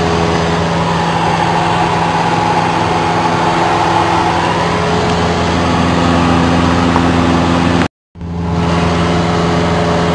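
A light aircraft's engine and propeller droning steadily, heard inside the cabin in flight. The sound cuts out completely for a moment about eight seconds in, then returns unchanged.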